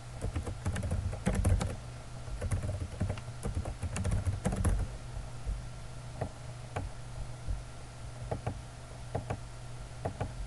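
Computer keyboard being typed on: quick runs of keystrokes over the first five seconds or so, then sparser single clicks, over a low steady hum.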